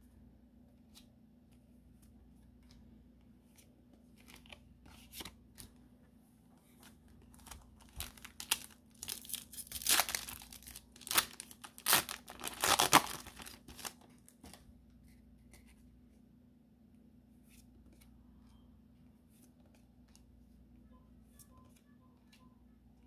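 A Pokémon 151 booster pack's foil wrapper being torn open by hand: crinkling starts a few seconds in and builds to several loud rips, then stops.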